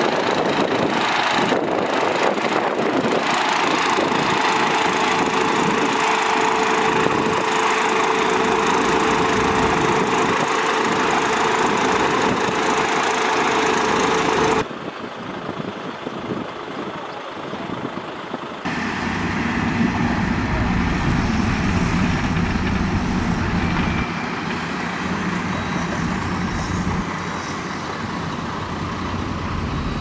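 Heavy diesel dump trucks running. A dense, noisy first half carries a steady whine. The sound drops abruptly about halfway, then a deeper engine rumble comes in after about 19 seconds.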